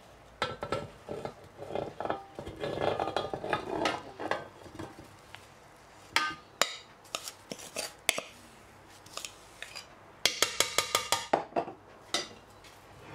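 A spoon scraping and knocking frozen ice cream out of a bowl into a stainless-steel mixer bowl, with scattered clinks. A little after ten seconds in comes a quick run of about ten sharp taps of the spoon against the bowl.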